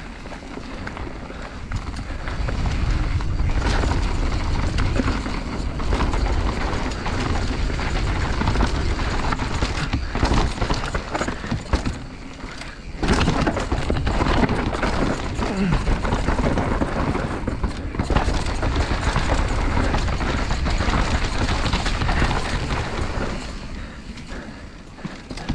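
Mountain bike descending a loose dirt trail: a steady rushing noise of tyres rolling over dirt and the bike rattling, building about two seconds in, with a short lull about halfway and easing off near the end.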